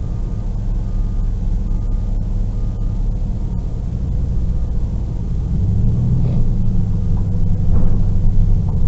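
Vehicle engine idling, a steady low rumble heard from inside the cab, growing a little louder about six seconds in. Faint short high beeps repeat several times in the first few seconds.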